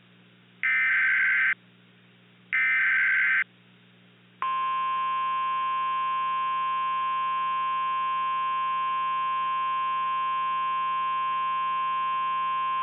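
Emergency Alert System SAME header: two short, buzzy bursts of data tones, each about a second long and a second apart. About four seconds in comes the steady NOAA Weather Radio 1050 Hz warning alarm tone, which announces an emergency message.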